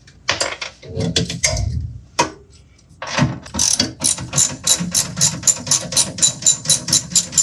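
Ratchet wrench clicking as a nut under the sink is undone: a few irregular clicks and knocks at first, then from about three seconds in a steady run of rapid clicks, about five a second.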